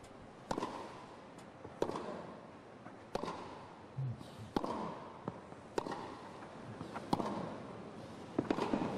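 Tennis rally: racquet strings striking the ball about every 1.3 seconds, with fainter ball bounces between the strokes.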